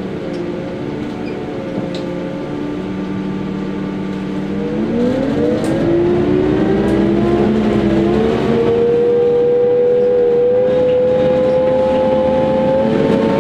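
Mercedes-Benz Citaro O 530 CNG city bus's natural-gas engine and drivetrain heard from inside the passenger cabin: a low steady hum that climbs in pitch and grows louder about five seconds in as the bus accelerates, then holds a higher steady note. A few light rattles from the cabin.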